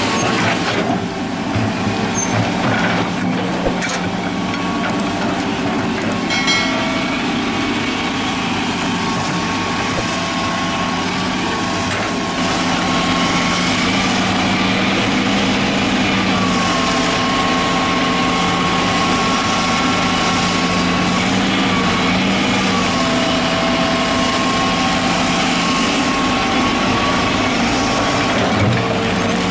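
Hitachi hydraulic excavator's diesel engine running steadily under working load, with a high whine that rises and falls in pitch as the boom and bucket are moved.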